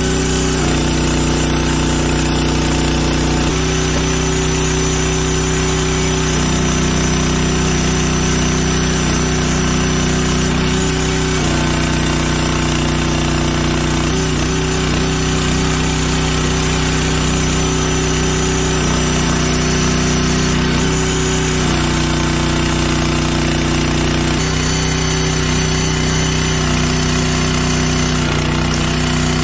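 Briggs & Stratton 6.5 HP petrol engine running steadily, driving the hydraulic pump of an 18-ton log splitter. Its tone steps up and down every few seconds as the ram is worked back and forth through the logs.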